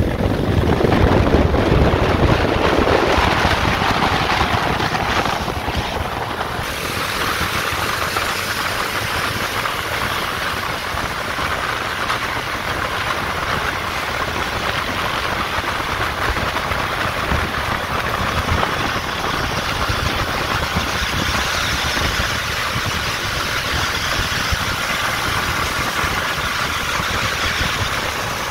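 A vehicle's engine running, with steady road and wind noise; the sound is louder at first and changes abruptly about six and a half seconds in, then stays even.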